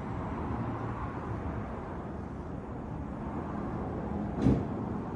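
Steady low background noise with one sharp knock about four and a half seconds in.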